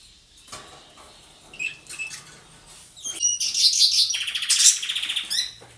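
Canary singing: a few faint chirps, then from about halfway a loud, fast, high-pitched trilling warble lasting around two and a half seconds.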